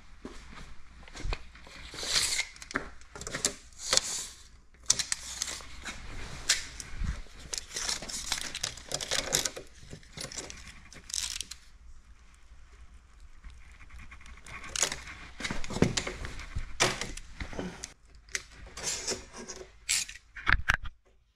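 Sheets of paint protection film rustling and crinkling as they are handled on the workbench, in irregular bursts with scattered clicks and taps.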